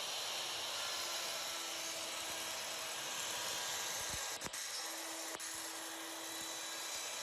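A ShopSabre CNC router's spindle running with a steady high-pitched hiss, with short humming tones from the machine's motors that come and go.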